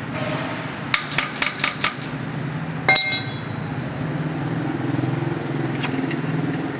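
A quick run of five sharp metal taps, then one louder metal clink that rings briefly, as a flanged hub is worked onto the shaft of a cooling tower fan motor. A steady low hum runs underneath.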